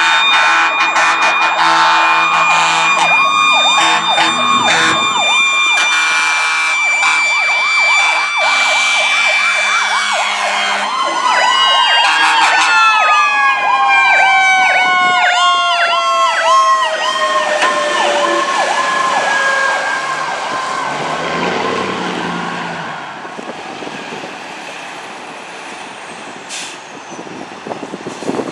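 Fire apparatus sirens passing close by: a mechanical siren's steady howl sliding slowly down in pitch as it winds down, under an electronic siren's fast repeating yelp. About twenty seconds in the sirens fade, leaving the truck's engine and road noise, with one sharp click near the end.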